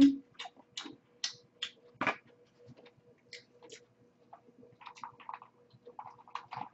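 Close-miked eating sounds: a run of wet mouth clicks and lip smacks while chewing, loudest about two seconds in. Near the end come softer sips from a glass, all over a faint steady hum.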